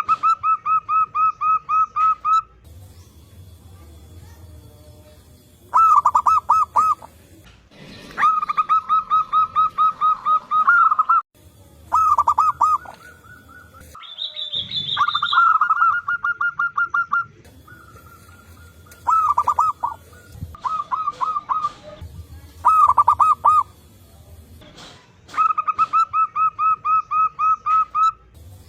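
Zebra doves (perkutut) cooing in bouts of rapid staccato notes, about five or six notes a second. The bouts last one to three seconds and are answered back and forth, with a brief higher call from another bird around the middle.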